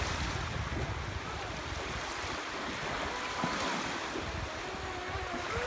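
Sea waves washing and breaking along the shore, with wind on the microphone. Through it comes the faint whine of a Feilun FT012 RC boat's electric motor out on the waves, wavering up and down in pitch as the throttle changes.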